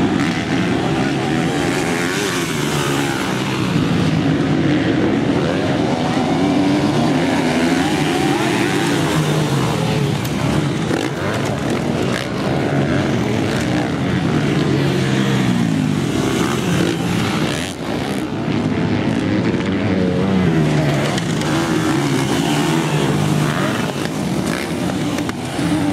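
Motocross dirt bikes racing, their engines revving up and falling back again and again without a break as the riders accelerate and shift.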